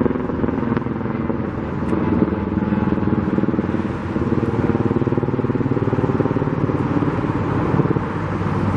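Steady engine noise from motor vehicles, with a low running hum under a broad rush of noise.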